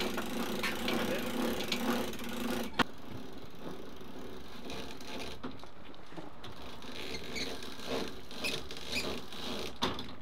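Hand-cranked mast winch on a sailing catamaran turning, with a steady whirr and clicking for the first few seconds as it hoists a heavy load. A single sharp click follows, then quieter scattered ticks and patter.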